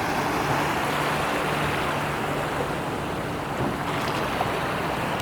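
Sea waves washing with wind buffeting the microphone, and a faint steady low hum under it for the first few seconds.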